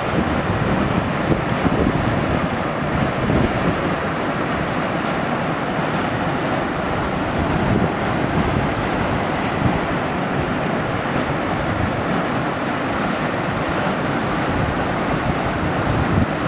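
Steady rush of falling water from a waterfall, an even, unbroken roar.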